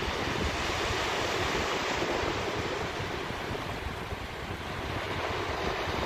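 Small waves breaking and washing up a sandy beach: a steady hiss of surf, with wind rumbling on the microphone.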